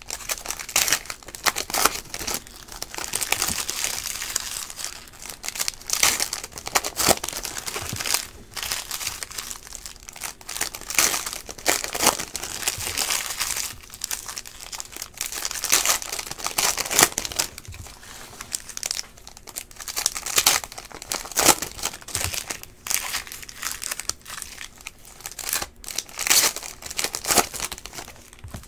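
Trading card pack wrappers being torn open and crinkled while stacks of cards are handled: a continuous run of irregular crackles, rustles and short tearing sounds.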